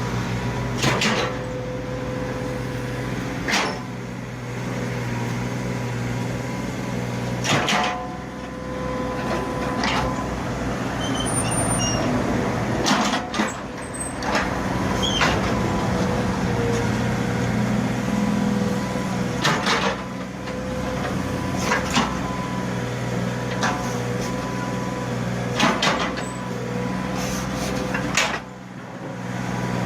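Mini excavator's engine running steadily as it works, with repeated sharp metal clanks and knocks every few seconds.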